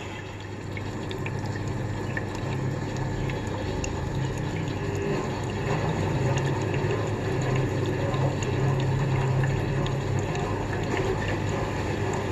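Front-loading washing machine running a hot-water drum-cleaning cycle with cleaning powder: water sloshing in the turning drum over a steady low motor hum.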